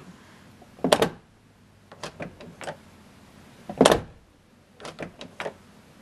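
Old Chevrolet Suburban door being shut twice, each time closing with one solid latch clunk, with lighter clicks of the handle and latch between. The latch mechanism is freshly lubricated with Fluid Film and catches smoothly, without grinding.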